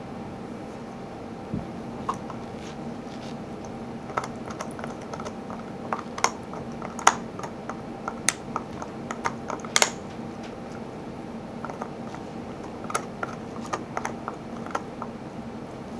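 Irregular light clicks and taps, scattered singly and in quick little clusters, over a steady low hum.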